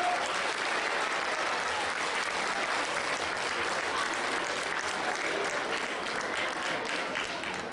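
Audience applauding, thinning toward the end into more separate claps.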